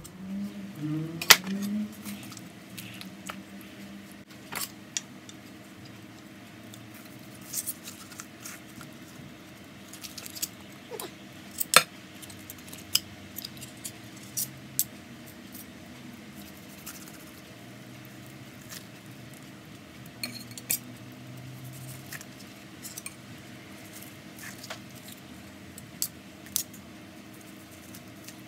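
Carving knife and fork tapping and clinking against a wooden cutting board and a ceramic plate while a roast chicken is carved, in scattered sharp clicks a few seconds apart.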